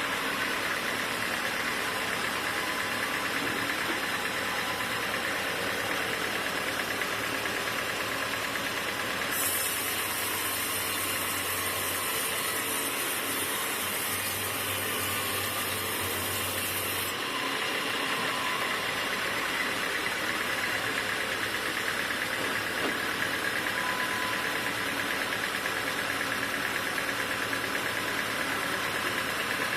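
Sawmill machinery running steadily with an engine-like drone. A brighter hiss and a low hum come in about nine seconds in and stop abruptly about eight seconds later.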